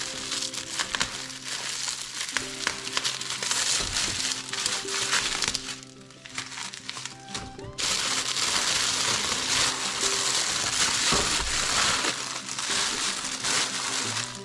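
Foil wrapper crinkling and rustling as it is peeled off a ham by gloved hands, over background music. The crinkling drops briefly about six seconds in, then comes back heavier and steadier.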